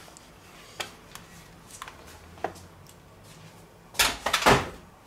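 A few light clicks of a serving utensil on a stainless steel roasting pan, then about four seconds in a louder clatter and knock as the metal pan is moved off the board and set down.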